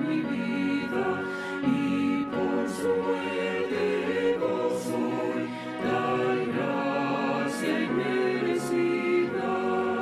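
A choir singing a Spanish hymn in slow, held notes.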